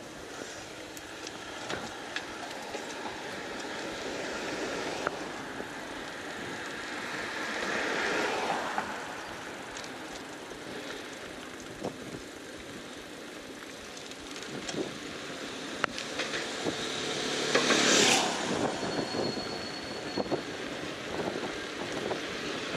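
City street traffic heard from a bicycle: a steady background of traffic noise, with vehicles passing close about eight and eighteen seconds in, the second pass the loudest. Scattered clicks run through it, and a brief high whine sounds just after the second pass.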